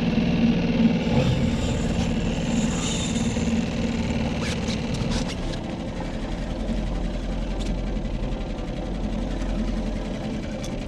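Boat's outboard motor running steadily at low speed, a constant low hum, with a few sharp clicks about halfway through.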